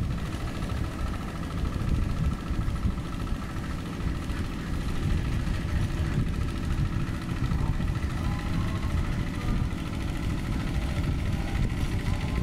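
Single-cylinder diesel engine of a Quick two-wheel hand tractor running steadily under load, chugging with a fast even beat as its cage wheels pull through paddy mud.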